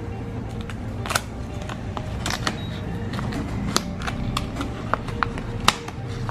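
Sharp clicks and crackles of a clear plastic blister pack being handled and pried open to free a small USB wifi adapter, over steady background music.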